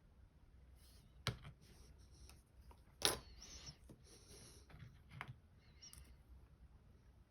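Small metal clicks and scrapes of a gut wrench working at the C-clip on a padlock: a sharp click about a second in, a louder one about three seconds in and another near five seconds, with light scraping between.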